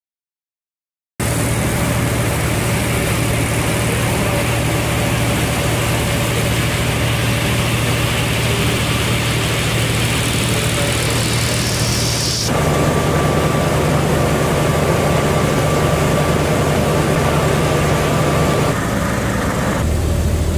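Heavy engine running steadily, a low hum with a hiss over it, starting abruptly about a second in. The mix shifts about twelve seconds in and again near the end.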